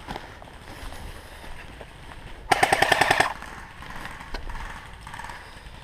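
An airsoft electric gun fires one short full-auto burst of about a dozen rapid shots, lasting under a second, about two and a half seconds in.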